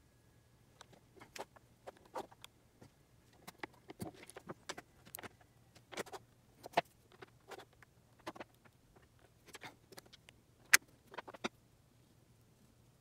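Small metal parts (cylindrical magnets, a metal rod and a small metal cup) being picked up and set down on a plywood workbench: irregular light clicks and taps, with one sharper click about three quarters of the way through.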